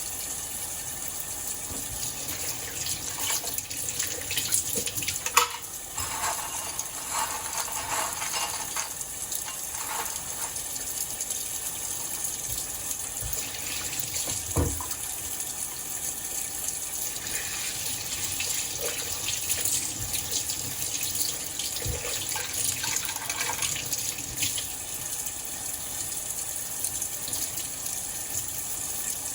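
Tap water running steadily into a sink while small metal keyboard parts are scrubbed under it, with stretches of scrubbing noise and a single sharp knock about halfway through.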